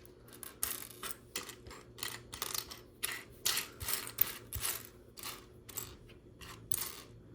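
Loose plastic Lego pieces clicking and rattling in short, irregular bursts as hands sift through them.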